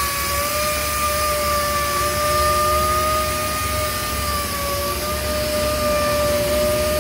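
Steady machinery noise in a ship's engine room: a constant roar with a high, slightly wavering whine.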